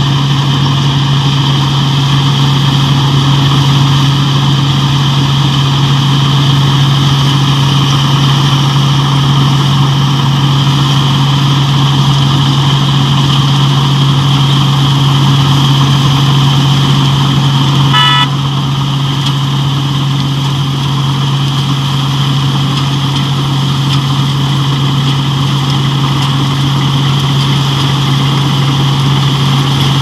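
Combine harvester with a straw-making (toori) attachment running steadily under load as it cuts wheat, with a deep steady engine hum and a constant whir of the cutting and threshing gear. About two-thirds of the way through there is a brief high beep, and the sound drops slightly after it.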